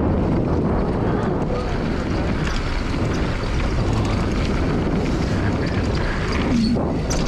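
Wind buffeting the microphone of a camera on a mountain bike riding downhill, over the steady rumble of knobby tyres rolling on a packed-dirt trail.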